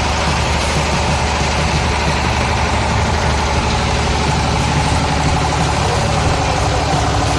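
Engine of an oil palm frond chopping machine running steadily.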